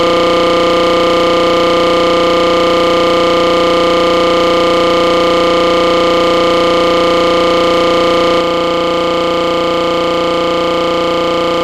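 A loud, steady electronic drone holding one unchanging chord of several tones. About eight seconds in, its lowest note drops out and it gets slightly quieter.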